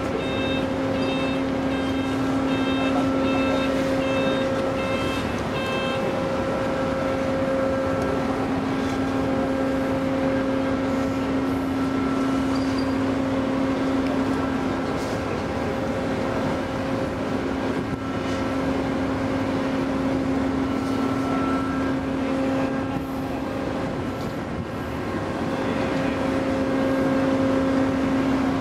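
Heavy machinery running with a steady hum at one pitch. A warning beeper repeats quickly, about two beeps a second, for the first six seconds, then stops.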